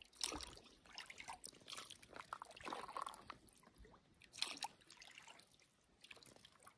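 Faint water dripping and trickling from a stand-up paddle as it dips into calm lake water, a few soft splashes, the loudest about four and a half seconds in.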